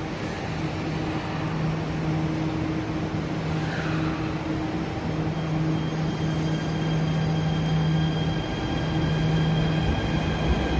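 MRT Jakarta electric metro train pulling away from the platform: a steady electrical hum, joined about halfway through by a thin high whine, growing gradually louder as the train starts to move.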